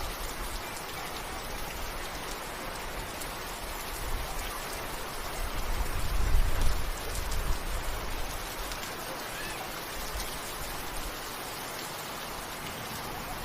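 Steady rain falling, an even hiss of drops across the whole range. A low rumble swells and fades about halfway through.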